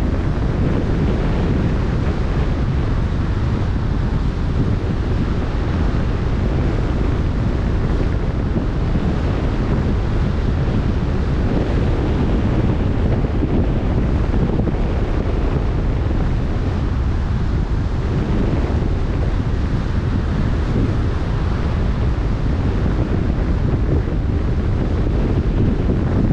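Wind buffeting the microphone over the wash of choppy open-sea waves: a steady, unbroken noise heaviest in the low end.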